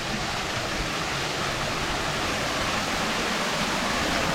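Small waterfall rushing: a steady, even hiss of falling water.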